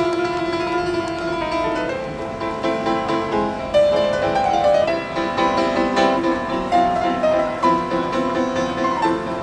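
Upright piano playing a flowing melody over steadily repeated chords.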